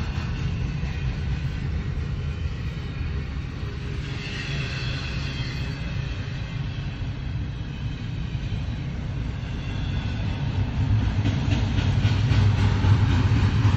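Double-stack container freight train rolling past, a steady rumble of the cars on the rails heard from inside a car, growing louder near the end.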